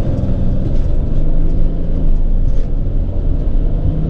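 Mercedes-Benz Sprinter van driving at highway speed: a steady low rumble of road and engine noise.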